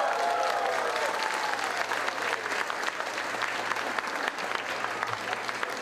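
Audience applauding, growing slightly quieter, with a few voices calling out in the first couple of seconds.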